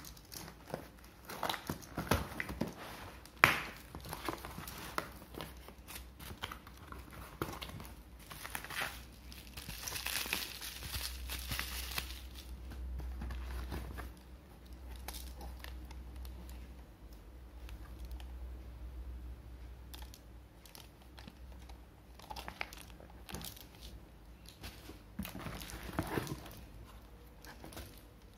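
Cardboard parcel being opened by hand: a box cutter slitting the packing tape, tape tearing, and cardboard flaps and plastic-wrapped thermal label rolls crinkling and rustling as they are handled. There are a few sharp clicks in the first few seconds.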